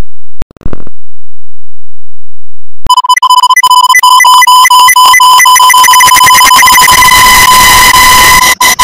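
Electronic beep tone at about 1 kHz with a stack of overtones, pulsing rapidly and heavily distorted, starting about three seconds in. From about seven seconds in it thickens into a harsh, noisy din.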